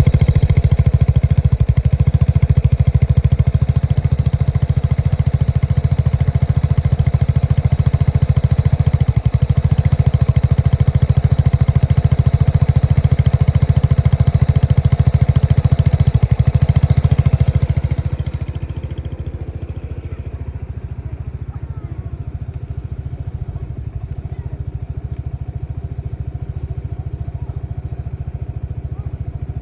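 Lexmoto Nexus 125cc engine running, louder and brighter for about the first 18 seconds, then dropping to a quieter steady run, as when the revs fall back to idle. The engine has a misfire fault.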